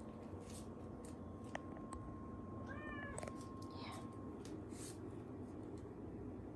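A domestic cat gives a short meow about three seconds in, asking for its breakfast, amid a few faint clicks and rustles.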